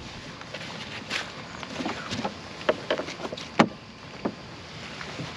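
Someone climbing into a kayak beached on sand: a rain jacket rustling, then a few sharp knocks and clunks on the hull and gear, the loudest about three and a half seconds in.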